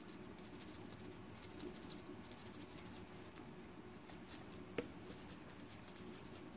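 Faint, irregular scratching of a stainless steel pot scrubber rubbing the rusted steel shaft of a Fishmate feeder's small plastic gear, scouring off seawater rust so the gear will turn freely. A single sharp click about five seconds in.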